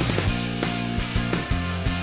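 Background music with a steady drum beat over sustained chords.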